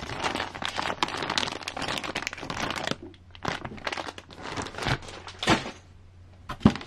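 Clear plastic parts bags crinkling and rustling as they are handled, dense for about three seconds, then sparser, with a few sharp separate clicks and rustles.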